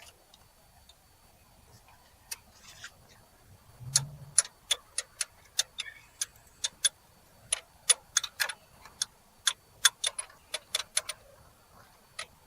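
Ratchet wrench clicking in short strokes, fitting a replacement starter motor. After a dull thump about four seconds in come sharp clicks, irregularly spaced a few per second, until they stop shortly before the end.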